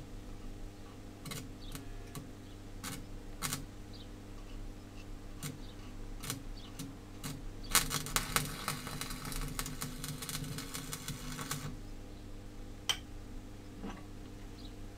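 Electric arc welding a bent steel rod: a dense, even crackle that lasts about four seconds in the middle, then stops abruptly. Before it and after it come scattered sharp clicks and taps of metal being handled on the steel table.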